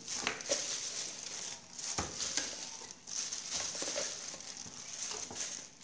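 Thin plastic glove crinkling as raw chicken drumsticks are handled and moved from a plastic colander into a plastic basin, with a single sharp knock about two seconds in.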